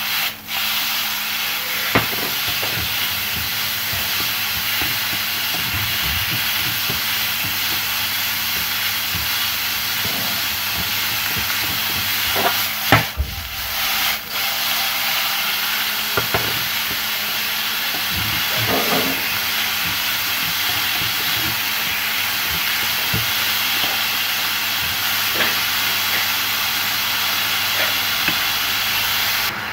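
Sliced beef sizzling in hot oil in a nonstick frying pan as it is stir-fried, a steady hiss throughout. A few knocks of wooden chopsticks against the pan come as the meat is turned.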